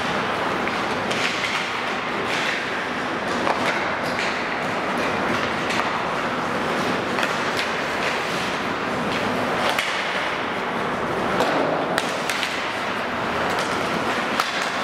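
Ice hockey play in a large indoor rink: a steady hiss of skate blades scraping the ice, broken by scattered sharp clacks and knocks of sticks and puck, the loudest a crack late on.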